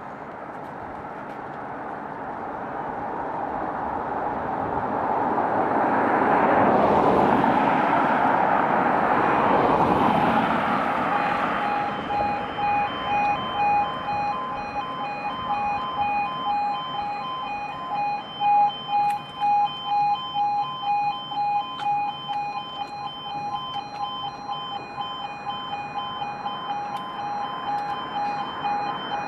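A road vehicle passes close by. Then, about twelve seconds in, the level crossing's warning alarm starts: a steady, pulsing, warbling electronic tone that keeps sounding as the red lights flash and the barriers begin to lower.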